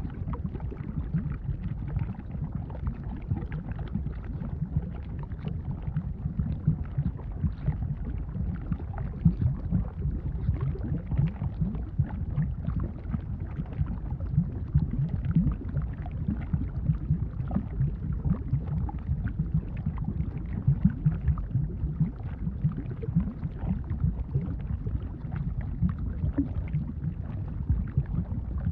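Thick lava bubbling: a dense, continuous run of low bubbles popping, with faint crackle above.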